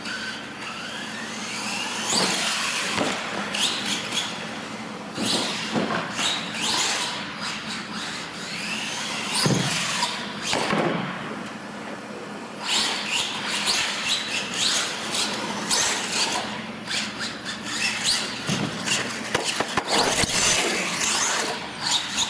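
Radio-controlled monster truck running on a concrete floor: its electric motor whining up and down with the throttle, tyres squealing, and several sharp knocks as it lands and hits.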